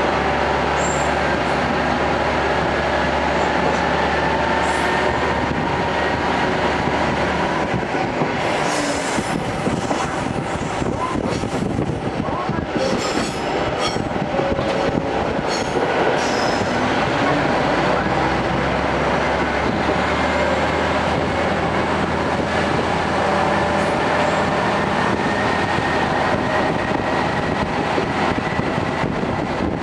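Inside a TH3501 diesel railcar under way: the engine and wheels on the rails run steadily. The low engine drone drops away about eight seconds in and returns about twenty seconds in, and a faint whine slowly rises in pitch near the end. Clicks and short high squeals from the wheels come in the middle stretch.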